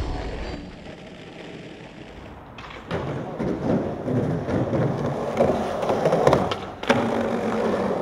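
Background music fades out in the first second. From about three seconds in, a skateboard's wheels roll on smooth pavement, with several sharp clacks as the board is popped and lands.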